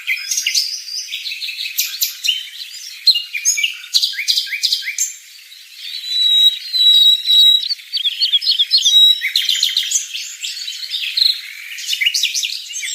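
Small birds chirping busily: a rapid, overlapping run of high-pitched chirps and quick sweeps, with one longer held note about halfway through.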